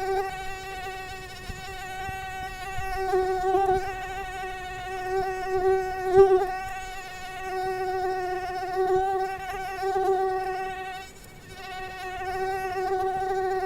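Mosquito buzzing in flight: a steady whine whose loudness swells and fades as it moves, dropping away briefly about eleven seconds in.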